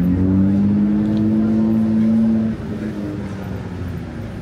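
A motor vehicle's engine accelerating past, its note rising in pitch and then holding steady before dropping off sharply about two and a half seconds in, over a low traffic rumble.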